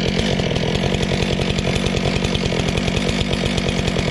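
Stihl chainsaw engine running steadily, with an even pulse and no change in speed.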